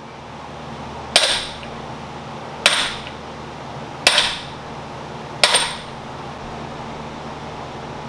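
Four hammer blows on a large socket, about one and a half seconds apart, driving an ATI harmonic balancer onto a 5.7 Hemi crankshaft a little farther with each hit. Each strike rings briefly.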